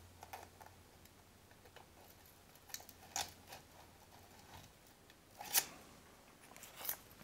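Faint light clicks and scrapes of a piston ring being fitted by hand into an engine block's cylinder bore, with a few louder clicks about three seconds in and again past five seconds.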